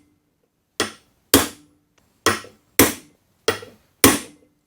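Hammer blows on a long socket used as a drift, driving a new sealed ball bearing onto a bench grinder's motor shaft. Six sharp metallic taps, roughly two a second, some with a short ring.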